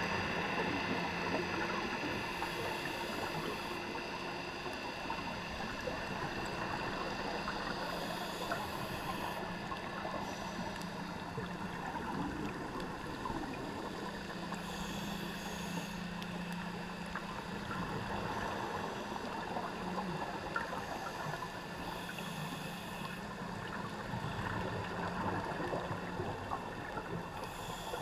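Underwater sound of a scuba diver breathing: the regulator's exhaled bubbles hiss in five short bursts about every six seconds, over a steady underwater crackle and a low steady hum.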